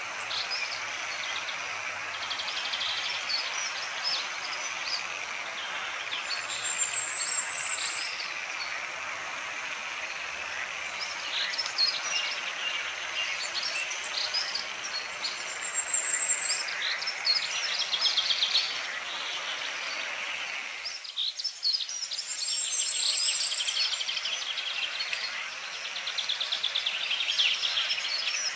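Natural chorus of small calling animals: many short chirps and rapid pulsed trills over a steady hiss, with a thin, high rising whistle heard three times. The sound dips briefly about three-quarters of the way through.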